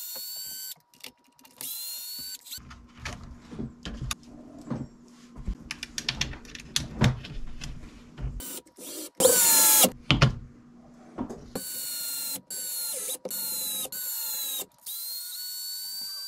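A small electric screwdriver runs in repeated short bursts with a high whine, turning screws in an RC car's plastic chassis. Between the bursts come clicks and rattles of screws and plastic parts being handled; the loudest run is about nine seconds in.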